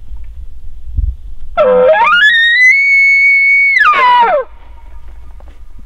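An elk bugle: one loud call that starts low, climbs to a high whistle held for about a second, then slides back down, lasting under three seconds.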